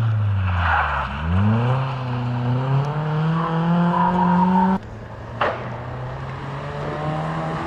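Rally car engine dropping in revs, then accelerating with rising revs for about three and a half seconds. The revs cut off sharply near the end, a single sharp crack follows, and the engine then runs on steadily.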